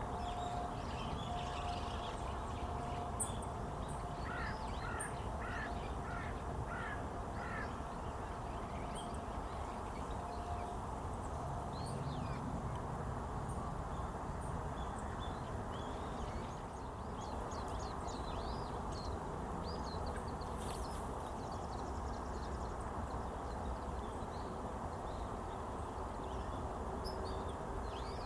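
A crow cawing a quick series of about seven caws, about four seconds in, over a steady low rumble, with scattered short, high calls of small birds throughout.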